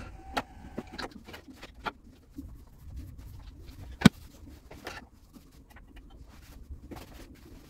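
Grooming-room clatter as equipment is moved by hand: scattered clicks and knocks, with one sharp knock about four seconds in.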